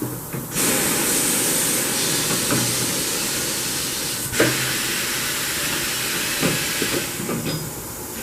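Compressed air hissing steadily for about six seconds, starting half a second in and easing off near the end, with a sharp metallic clack partway through, from the tire-changing work.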